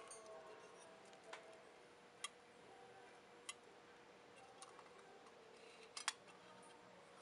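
Small sharp clicks from a handheld copper automaton pendant as its hinged lid and spring mechanism are worked by hand: six or so separate clicks, the loudest a double click about six seconds in as the lid shuts.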